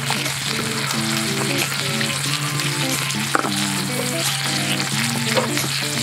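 Garlic butter and sauce sizzling in hot camp cookware, a steady crackling hiss, over soft background music.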